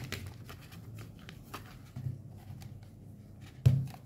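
Manga volumes being handled and flipped: light rustling and clicking of paperback covers and pages against plastic wrapping, with a louder knock about three and a half seconds in.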